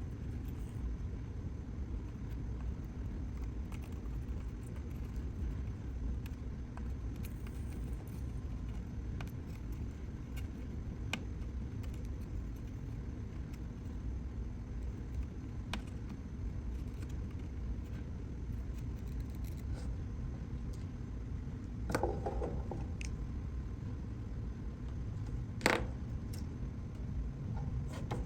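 Steady low background hum with scattered light clicks and taps of small hand tools on a workbench during soldering-iron and solder-wick desoldering. A short rattle comes about 22 seconds in, and a sharper single click near the end.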